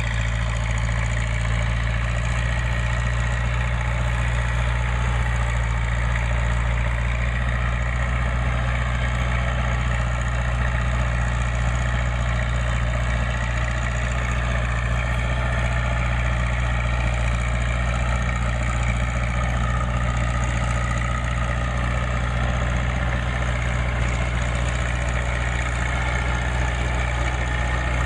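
Tractor engine running at a steady speed, driving a Massey Ferguson 1745 round baler, with a mechanical haze over a strong low engine note and no change throughout.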